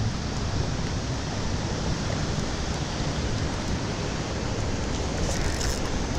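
Steady rushing hiss of flowing creek water, even and unbroken.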